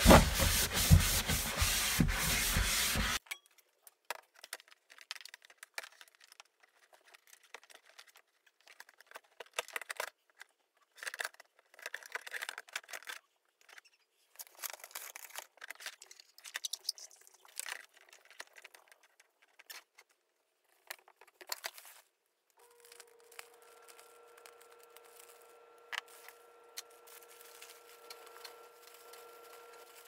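Cloth rubbing hard over a plastic storage tote as it is wiped down, loud and close to the microphone for about three seconds, then cutting off suddenly. After that only faint scattered rustles and clicks of handling, with a faint steady hum coming in about two-thirds of the way through.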